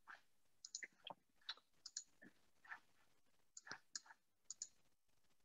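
Near silence with about a dozen faint, irregular clicks from a computer being operated to start a screen share.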